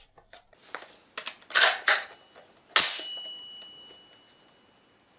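Mechanical clicks and clacks of an AR-15 rifle being handled, loudest about a second and a half in. Near the three-second mark comes a sharp metal clack, followed by a thin high ring that slowly fades.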